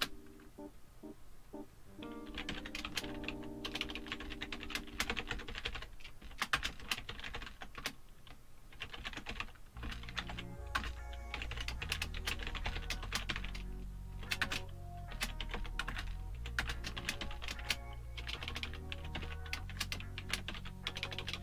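Computer keyboard typing in quick runs of keystrokes, over background music whose low bass line comes in about ten seconds in.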